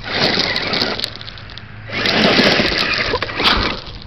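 Traxxas E-Maxx electric RC monster truck driving over loose gravel, its motors running and its tyres churning the stones, in two bursts: one of about a second, then a longer one of nearly two seconds.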